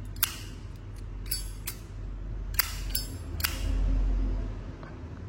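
Metal Zippo lighters clinking, about six sharp clicks as they are handled. A low rumble swells and fades in the background a little past the middle.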